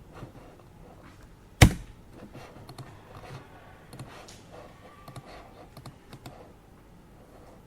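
Typing on a computer keyboard: irregular key clicks for several seconds, with one loud sharp knock about a second and a half in.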